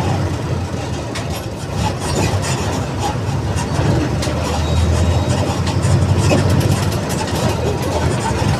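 Mercedes-Benz OF 1722M bus's diesel engine running with a steady low rumble, with light rattles and clicks over it.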